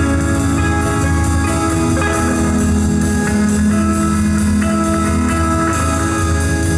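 Live instrumental rock band playing: electric guitar and bass chords held over a drum-kit beat with evenly repeating cymbal strikes. No vocals; the song's lyrics are not yet written.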